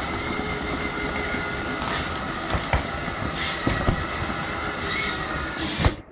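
Tamiya Knight Hauler 1/14 RC tractor truck running, heard close up from a camera mounted on the model: the steady whine of its electric motor and gears over wheel noise, with frequent knocks and rattles from the chassis and trailer. The noise drops away suddenly near the end.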